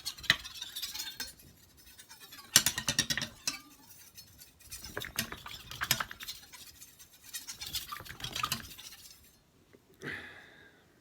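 Knife blade being stroked across a wet Naniwa 5000-grit waterstone, a scraping rasp of steel on stone in four separate passes a couple of seconds apart. These are the fine finishing strokes on the final stone, raising a burr on the edge.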